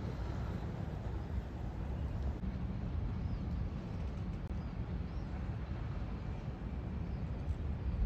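Steady low rumble of a large motor yacht manoeuvring stern-first to dock, with a few faint high chirps in the middle.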